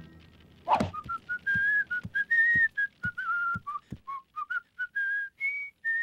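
A tune whistled in short notes that step up and down in pitch, after a single thud about 0.7 s in, with soft low thumps under the notes.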